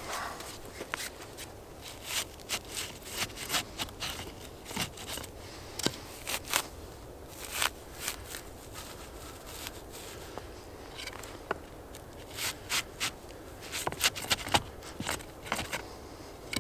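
Dry curly wood shavings rustling and scraping as a gloved hand stuffs them into the split top of a Swedish torch log: irregular short, scratchy rustles, a couple a second.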